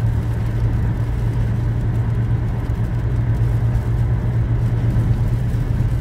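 Opel Astra 1.4 turbo petrol engine (A14NET) at about 3,000 rpm, heard from inside the cabin as a steady low drone under road and wind noise, accelerating gently from about 130 to 140 km/h. This is the road test after the turbo work that cleared its P0299 underboost fault.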